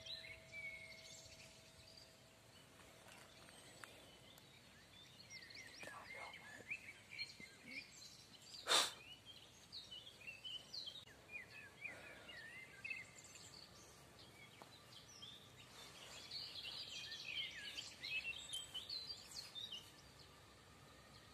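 Small birds chirping and singing from the surrounding woodland, with one sharp click about nine seconds in.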